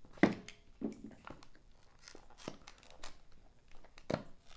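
Plastic packaging of a trading-card repack box crinkling and tearing as it is worked open and the stack of cards comes out: a series of irregular sharp crackles, the loudest about a quarter-second in and again near the end.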